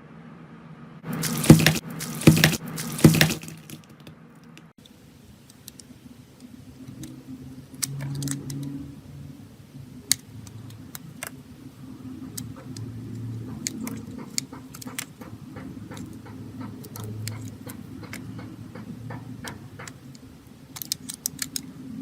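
Slime being squeezed and pressed by hand, with a burst of loud crackling pops in the first few seconds, then sparse sticky clicks and pops.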